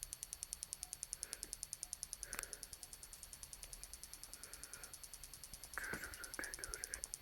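Faint, high, rapid ticking at an even pace of about ten ticks a second, with a single click a little past two seconds in and a brief rustle near the end.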